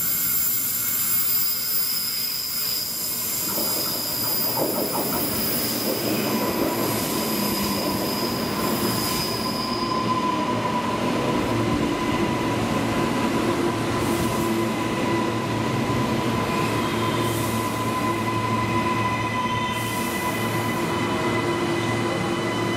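Electric suburban multiple-unit train running slowly along a curved platform track in a covered station, its wheels squealing in several steady high tones. A heavier wheel rumble joins from about four seconds in, and a lower squeal sets in a couple of seconds later.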